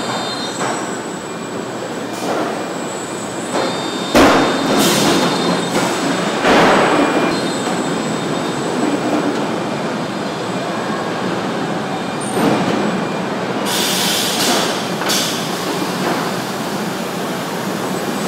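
Steady clattering din of a car body-shop assembly line, with robots and conveyors working on steel body shells. Short sharp hisses cut through several times, around four and six seconds in and again in a quick cluster near the end.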